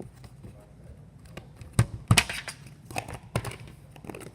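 A few sharp knocks and crinkles of small objects being handled, the loudest two close together a little before the middle.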